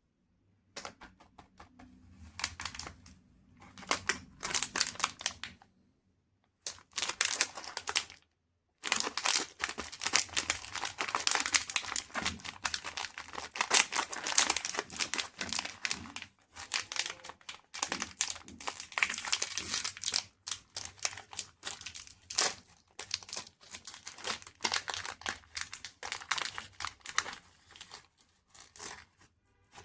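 Chocolate bar wrapper crinkling and tearing as it is unwrapped, in irregular crackly bursts with a couple of short pauses.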